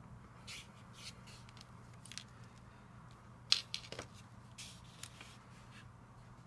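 Plastic LEGO bricks being handled: a scatter of light clicks and taps as pieces are picked up, set down and pressed onto a baseplate, the sharpest click a bit over three and a half seconds in. A faint steady low hum runs underneath.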